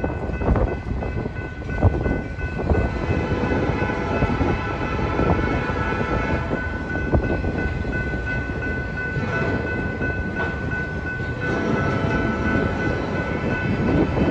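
Loaded freight cars rolling past at a grade crossing: a steady rumble of wheels and trucks with repeated clacks as the wheels cross rail joints. A faint steady high tone runs over it, and the rumble grows louder near the end.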